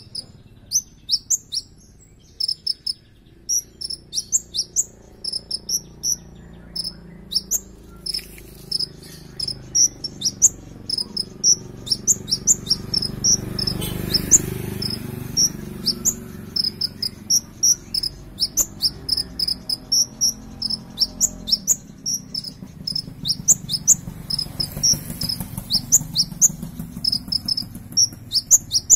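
Caged kolibri ninja (sunbird) singing a rapid, almost unbroken stream of high, thin chips and twitters, with a short pause about eight seconds in. A faint low rumble swells underneath around the middle.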